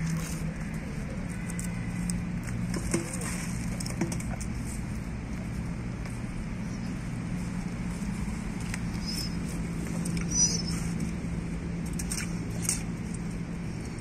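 A dog scrabbling and pawing at an old rubber car tyre on icy, muddy ground: scattered light scuffs and taps, with a few sharper clicks, over a steady low hum.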